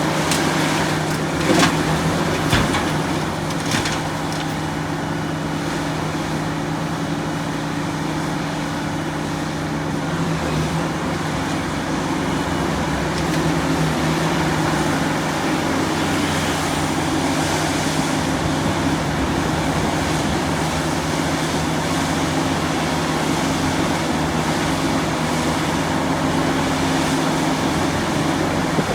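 Large excavator's diesel engine running steadily under load, with a few clanks about two to four seconds in.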